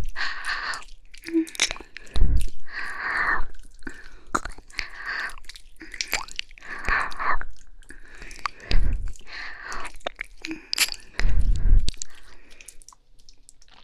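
Close-up ASMR mouth sounds: slow wet licking and kissing, a run of moist clicks and smacks between soft airy breaths, with a few low puffs of breath hitting the microphone.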